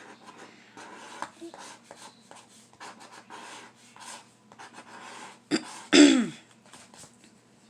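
A penny scratching the coating off scratch-off lottery tickets in short rasping strokes. About six seconds in, the scratching is broken by a loud cough, as from something caught in the throat.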